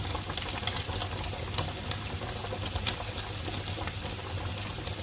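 Pancetta frying in a pan, a steady sizzle with many small crackles as it crisps.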